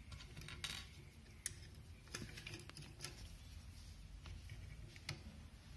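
Faint, scattered clicks and taps of small plastic and metal parts being handled as the 3D printer's hotend assembly is fitted back onto its carriage, about half a dozen over the few seconds.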